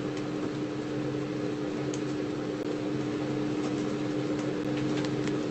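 A kitchen appliance's motor or fan running with a steady hum on one fixed pitch, under a light even hiss.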